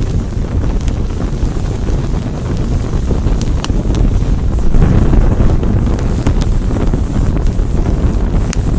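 Fire burning: a loud, dense low rumble that swells about halfway through, with scattered sharp crackles and pops.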